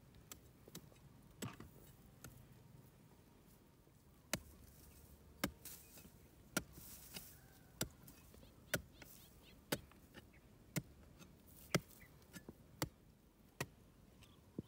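A long-handled digging tool chopping into dry ground, a few light knocks at first and then sharp, regular strikes about once a second from about four seconds in.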